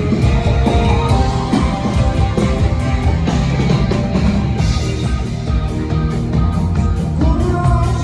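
Rock band playing live at sound check: drums, bass and electric guitar playing a song together, loud and continuous.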